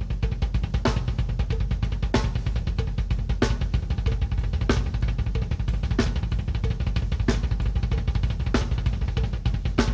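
Drum kit played with continuous fast double strokes on the bass drums, both feet working the pedals without a break. Over them the hands strike a sharp accent about every second and a quarter.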